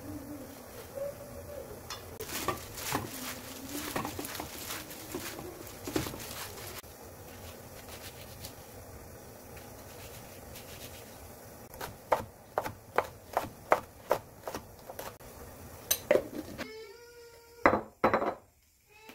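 Kitchen-knife strokes on a wooden cutting board as a green chili pepper is sliced, about two or three cuts a second in a short run past the middle. Near the end a metal spoon knocks against a small ceramic bowl while a dressing is mixed.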